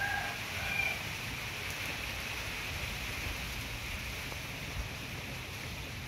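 Steady rain, a continuous even hiss, with a couple of short high-pitched calls in the first second.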